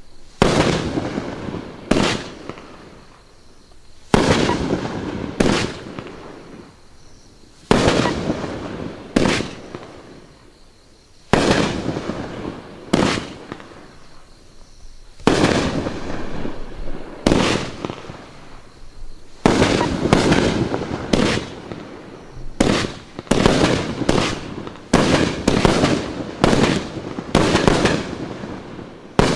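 Riakeo Max Load #4, a 1.4G 500-gram fireworks cake, firing shot after shot: sharp reports, each trailing off over a second or so. The shots come every second and a half to two seconds at first, then in quick succession from about two-thirds of the way in.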